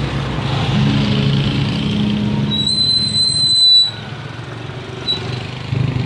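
Motor vehicle engines running at walking pace, with a high, thin squeal lasting about a second midway. The engine sound then drops away abruptly.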